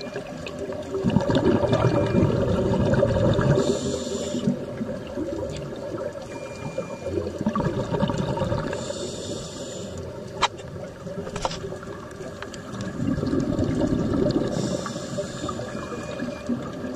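Scuba breathing heard underwater: three breaths about five seconds apart, each a long bubbling exhale through the regulator followed by a shorter hiss of air drawn through the demand valve. Two sharp clicks near the middle.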